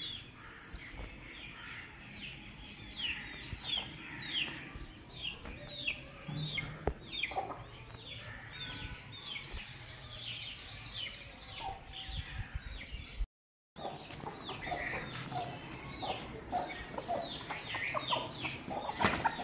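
Chicks peeping over and over in short, high, falling notes, several a second, with adult chickens clucking underneath.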